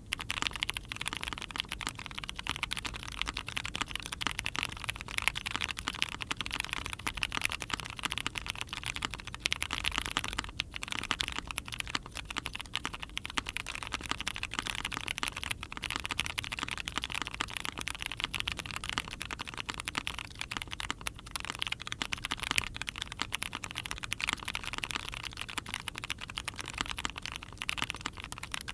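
Continuous typing on a mechanical keyboard with Cherry-topped OP Grey tactile switches, lubed and filmed, mounted on a POM plate in a foamed case and fitted with GMK keycaps: a steady stream of key clacks. The tactile switches are described as still way too scratchy.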